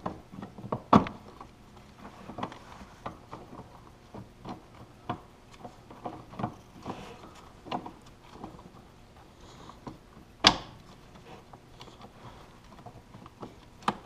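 Irregular metal clicks and knocks as the drive chain and sprocket gears are fitted together onto their shafts in a snowmobile's chain case. There is one sharper knock about a second in and another about two-thirds of the way through.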